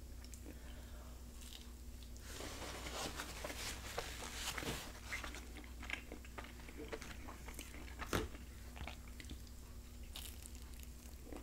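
A person chewing a grilled chicken quesadilla close to the microphone: soft, wet mouth sounds and small crackles, with a fresh bite near the end.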